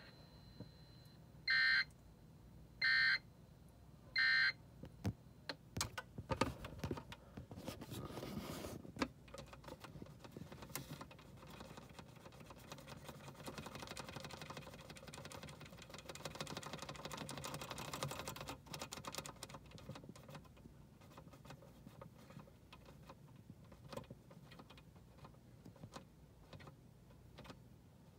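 Three short bursts of EAS data tones from a Sage EAS ENDEC, about 1.3 s apart: the end-of-message code that closes the tornado warning broadcast. After them come faint scattered clicks and handling noise as the unit's front-panel buttons are worked.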